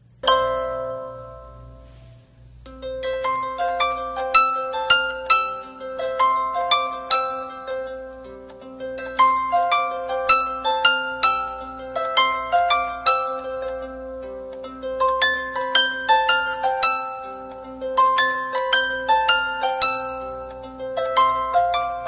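Background music: a plucked-string melody over a steady low tone. It opens with one chord, pauses, and the melody picks up again about three seconds in.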